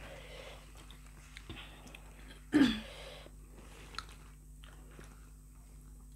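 Close-up chewing and biting of steamed pork momos, soft and wet, with one short voiced 'mm' about two and a half seconds in and a small click near the middle.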